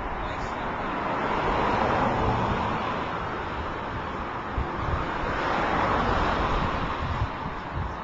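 Outdoor rushing noise that swells and fades twice, with low rumbles of wind buffeting the microphone.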